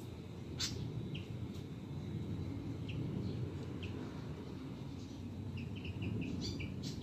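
Oriental magpie-robin calling: scattered short, sharp chirps, then a quick run of notes near the end, over a steady low background rumble.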